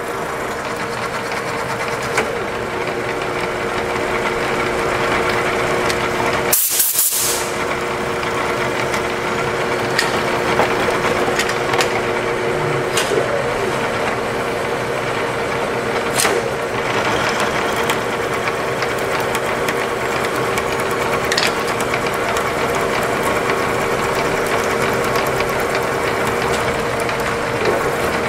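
Vertical knee mill running, its end mill cutting a groove into a round metal part clamped in a vise: a steady machine hum with the grinding rasp of the cut and scattered ticks. A short loud hiss comes about seven seconds in.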